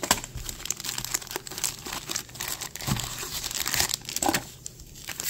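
Foil Pokémon booster-pack wrappers crinkling as the packs are handled and stacked, an irregular run of crackles.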